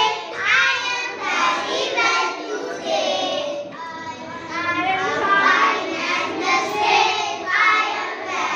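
A class of young children singing a nursery rhyme together in unison.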